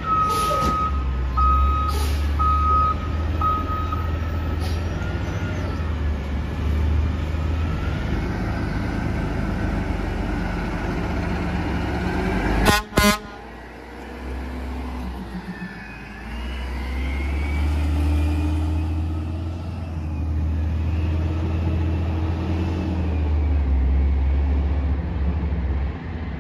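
Peterbilt 320 front-loader garbage truck: its diesel engine runs throughout while its backup alarm beeps for the first few seconds. About 13 seconds in the horn gives two short, loud honks, and then the engine revs as the truck pulls away.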